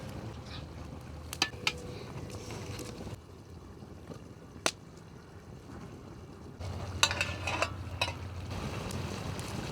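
Chicken dish cooking in a pot over an open fire, with a steady sizzle and a few sharp clinks of a utensil against the pot, including a quick cluster of clinks near the end.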